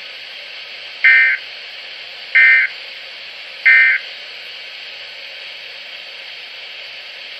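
Three short bursts of weather-radio SAME digital data tones, each about a third of a second long and a little over a second apart, over steady radio hiss. They are the end-of-message code that closes the weather bulletin before the next alert message.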